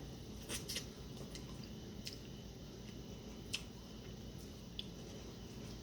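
Faint eating sounds at close range: a few scattered, crisp clicks and crackles from chewing and handling food, the sharpest about three and a half seconds in.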